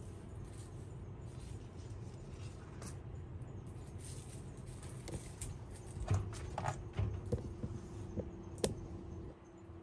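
Handling noise from a hand-held camera being moved: light clicks and low knocks in the second half, the sharpest a single click near the end. Under it runs a steady outdoor background hum.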